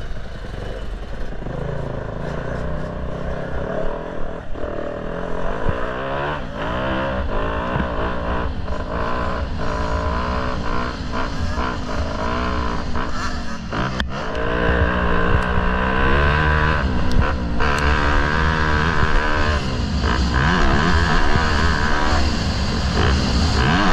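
Dirt bike engine heard from the rider's own helmet camera, revving up and down through the gears on the track, its pitch climbing and dropping again and again. It gets louder about halfway through as the pace picks up.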